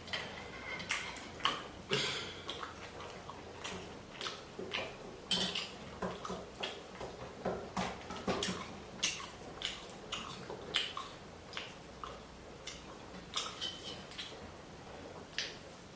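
Eating noodle soup: cutlery repeatedly clinking against a bowl, in small irregular clicks, along with the mouth sounds of eating.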